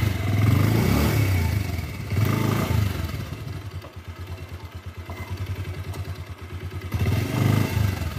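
Motorbike engine revved in repeated bursts as the bike struggles, stuck in deep mud.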